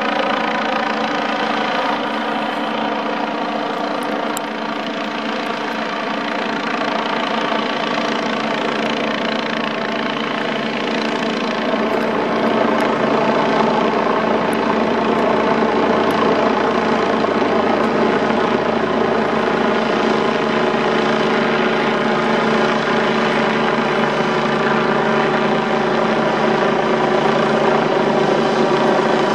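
Helicopter hovering overhead: a steady drone of rotor and engine made of many even tones, getting louder about halfway through as it comes closer.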